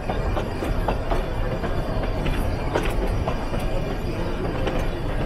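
Metre-gauge Nilgiri Mountain Railway train rolling over the station tracks, a steady rumble with irregular sharp clicks from the wheels crossing rail joints and points.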